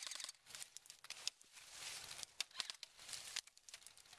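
Faint rustling and crunching of dry fallen leaves: irregular crackles and clicks with no steady rhythm.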